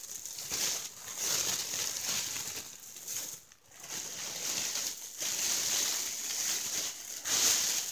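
Mylar space blanket crinkling and rustling as it is handled and bunched up, a continuous crackly rustle with a brief lull about three and a half seconds in.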